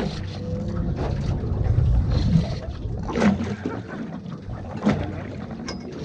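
Wind rumbling on the microphone aboard a boat at sea, with a couple of sharp knocks about three and five seconds in.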